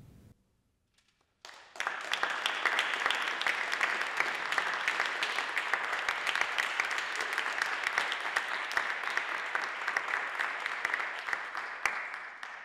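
Small audience applauding, starting after about a second and a half of silence and dying away near the end.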